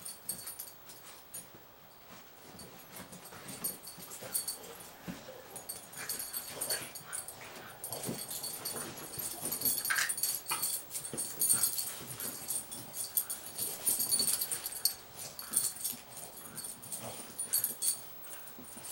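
A Boston Terrier and an English Bulldog playing rough together: dog noises mixed with a steady patter of scuffles and clicks, liveliest in the middle stretch.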